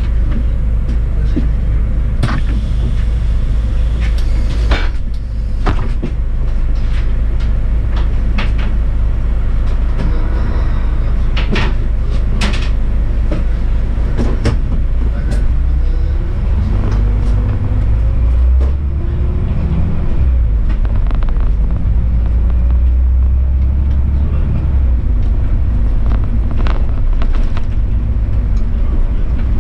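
Bus under way: a steady low rumble of engine and road, with frequent short rattles and knocks. A little past halfway, a rising engine note is heard as it picks up speed.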